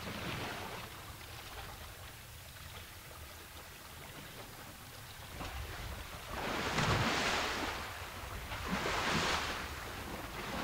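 An African elephant splashing and sloshing in a muddy wallow: quiet slopping of mud and water, then two louder splashes about two-thirds of the way through and near the end, the first with a low thud.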